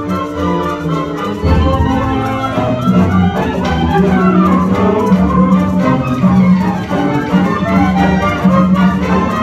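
High school symphony orchestra playing, with bowed strings (violins, cellos, double bass) carrying sustained notes. The bass grows much fuller about a second and a half in.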